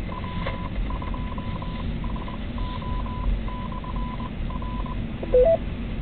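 Ham radio repeater identifying itself in Morse code: a single beeping tone keyed in dots and dashes for about five seconds, then a short two-note beep, low then higher. It comes through the mobile radio's speaker over steady car road noise.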